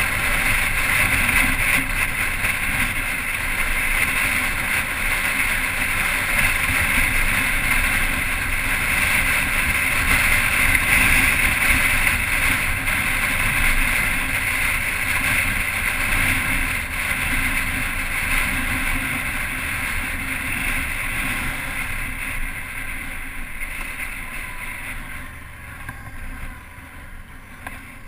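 Motorcycle riding at speed: wind rushing over the microphone with the engine running underneath. It eases off over the last several seconds as the bike slows toward a junction.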